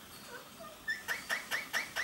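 Indian ringneck parakeet giving a quick run of short chirps, about four or five a second, starting about a second in.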